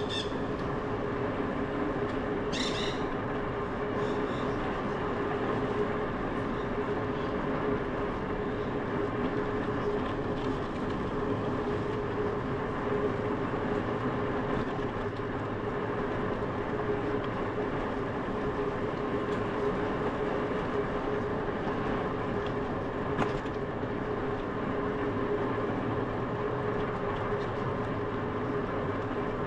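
Bicycle tyres rolling steadily on asphalt, heard as constant road noise with a steady hum under it.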